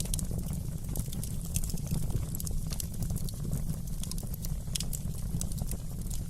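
Fireplace wood fire crackling, with irregular sharp pops and snaps over a steady low rumble.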